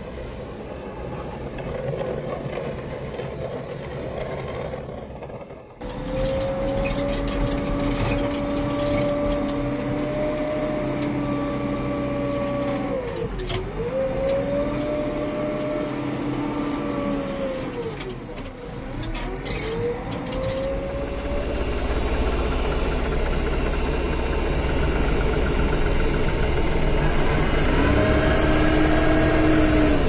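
Engines of snow-clearing machines: a tractor pushing snow with a front blade, then, heard from inside the cab, a wheel loader running with a steady whine that drops sharply in pitch and comes back up twice. Near the end another machine's engine runs steadily and deeper.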